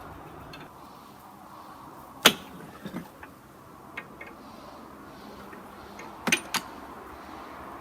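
Sharp metal clicks of a wrench working the track-tension grease relief valve on a John Deere 35G mini excavator. The loudest, a single pop about two seconds in, is the valve breaking loose, and lighter clinks follow.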